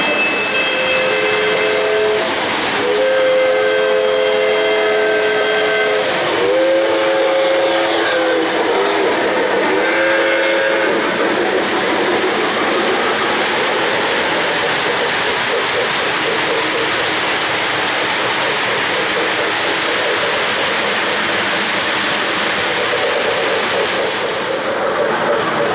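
O-gauge model steam locomotive's sound system blowing its steam whistle in several held blasts over the first ten seconds or so. The model freight train then keeps rolling along the three-rail track with a steady running noise.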